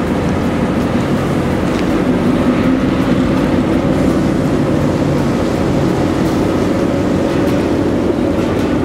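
Tugboat diesel engine running steadily with a low, even hum, over churning water.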